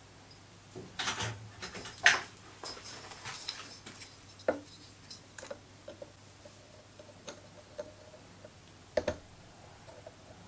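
Small metal parts and a hand tool being handled on a workbench: irregular light clicks, taps and scrapes, with a sharp knock about two seconds in and a quick double click near the end.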